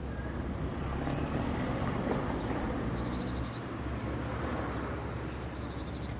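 Outdoor ambience: a steady low rumble with a hiss over it, and two short bursts of rapid, high chirping pulses, one about three seconds in and one near the end.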